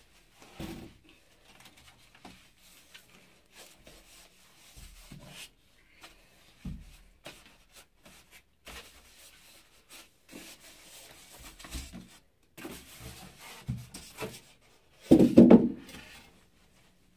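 Plastic wrap rustling and polystyrene foam packing rubbing and scraping as a boxed speaker is worked loose, with scattered light knocks. About fifteen seconds in comes a much louder scraping burst lasting about a second.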